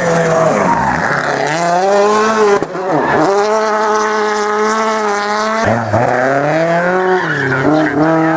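Rally car engine revving hard through tight corners, first a Ford Fiesta WRC. The pitch climbs and falls sharply several times as the throttle is lifted and reapplied, most clearly about three seconds and six seconds in.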